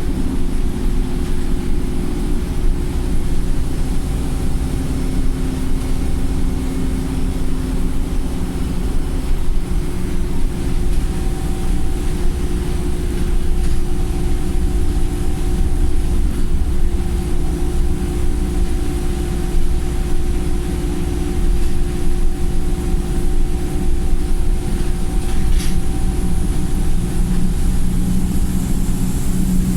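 Wright StreetLite single-deck bus heard from on board while under way: a steady engine drone over low road rumble, with the engine running in limp mode. A single sharp click comes late on, and a hiss builds near the end.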